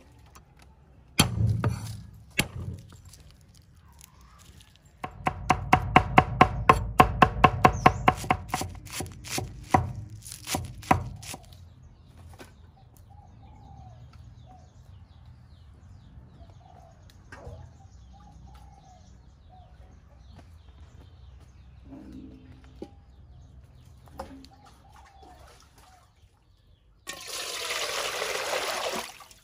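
A fast run of sharp knocks, about three a second, for several seconds, then a quiet stretch with faint high chirps, and near the end water pouring from a metal bowl into a large steel wok, a steady rushing splash.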